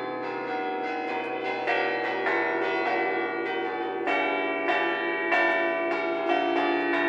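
The church bells of Santa Maria Maggiore's campanile being rung in a bell concert: a quick, continuous succession of overlapping strokes at several pitches, growing a little louder about two and again about four seconds in.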